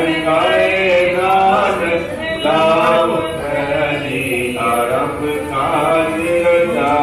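Music: a voice singing a slow, chant-like melody in held, wavering notes.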